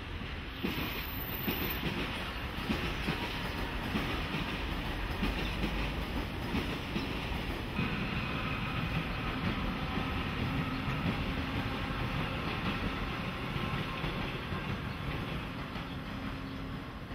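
Passenger train passing on the embankment overhead, its wheels clattering over the rail joints in a dense, continuous run. About halfway through, a steady whine joins the clatter, and the sound dies away at the end.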